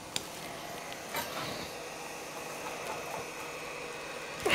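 Steady faint hum of bench equipment, with a sharp click just after the start and a light clatter of hand tools being set down and picked up about a second in.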